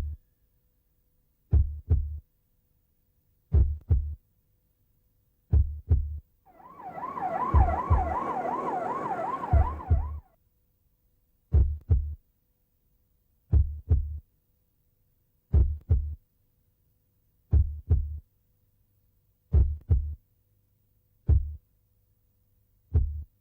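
Slow heartbeat, a double thump about every two seconds. From about six to ten seconds in, an emergency siren wails over it with a fast warble.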